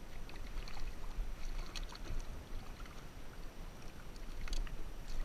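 Water slapping and splashing against the side of a kayak as a hooked whiting is brought up at the surface, over a steady low rumble, with several short sharp splashes.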